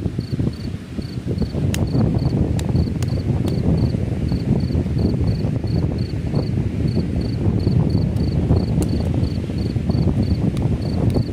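Strong wind buffeting the microphone in a gusty, low rumble, with an insect chirping steadily about three times a second and a few sharp ticks over it.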